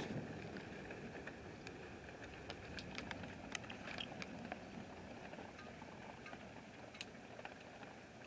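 Faint outdoor thunderstorm ambience: a steady hiss with scattered sharp ticks.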